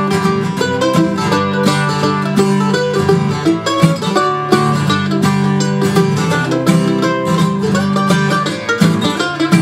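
Acoustic guitar and mandolin playing an instrumental break in an upbeat folk song, with quick picked notes and no singing.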